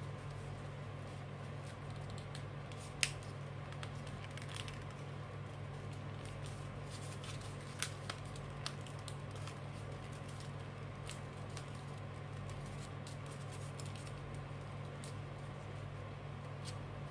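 Paper being folded and creased by hand: soft rustling with scattered crisp clicks, the sharpest about three seconds in, over a steady low hum.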